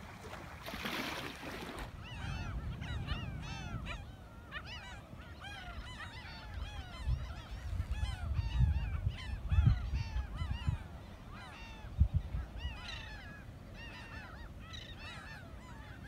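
A flock of seabirds on a sandbar calling: many short, overlapping calls rising and falling in pitch, starting about two seconds in. Gusts of wind on the microphone rumble underneath.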